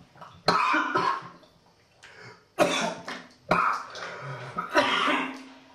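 A man coughing hard in four separate bouts, each starting suddenly, the last trailing into a drawn-out voiced gasp.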